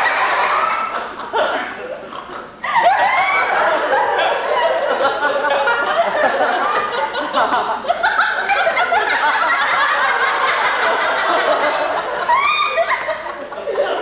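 Live theatre audience laughing, many people at once; the laughter dies down briefly about two seconds in, then breaks out again louder.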